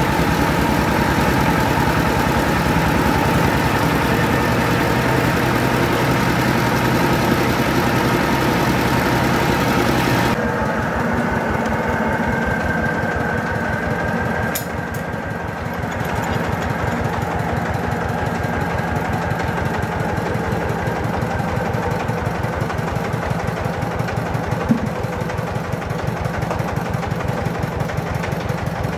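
Diesel engine of a mobile rice mill running steadily, driving the rice huller and polisher, with a fast even beat under a whirring hiss of machinery. About ten seconds in the sound changes abruptly: the higher hiss drops away and the engine's beat stands out.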